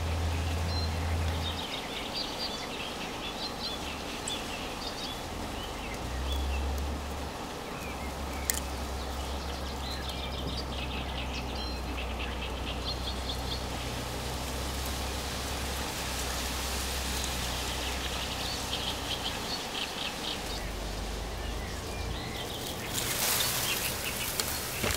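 Outdoor ambience: small birds chirping on and off over a steady low rumble, with one sharp click about a third of the way in and a burst of rustling near the end.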